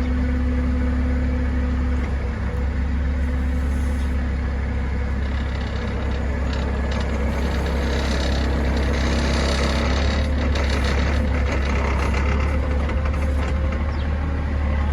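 Forklift engine running steadily as the forklift moves slowly with a load on its forks, a constant low hum with a steady pitched drone.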